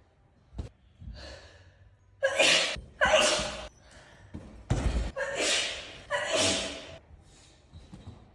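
A person in a sneezing fit: a run of about five loud, voiced sneezes with gasping in-breaths, coming in quick succession between about two and seven seconds in.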